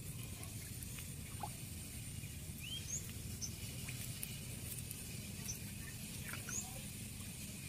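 Light patter and small ticks from handling a fish-trap net and pole from a wooden boat, over a steady low rumble, with a few short high chirps about three and six and a half seconds in.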